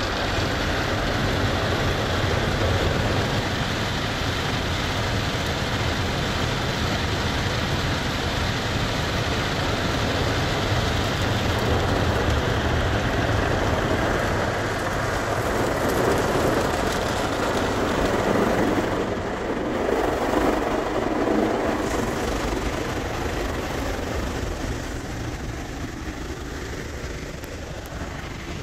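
Automatic car wash working over the car, heard from inside the cabin: a steady rush of water jets spraying against the glass and bodywork, with the wash brushes sweeping over it. The noise is loudest around the middle and eases a little near the end.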